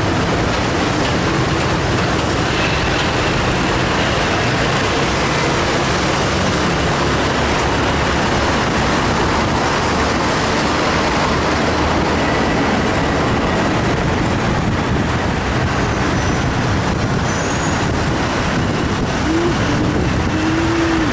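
Steady city traffic and road noise heard from a moving vehicle in slow traffic: a dense, continuous rumble and hiss. A brief rising tone comes near the end.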